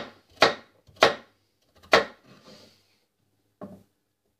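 Kitchen knife chopping carrots on a wooden cutting board: four sharp chops, the gaps between them lengthening from about half a second to nearly a second, then a lighter chop near the end.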